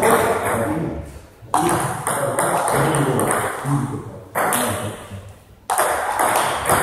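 Table tennis ball struck or bounced on the table or a bat: three sharp hits, each ringing out and fading in the hall's echo, over faint background voices.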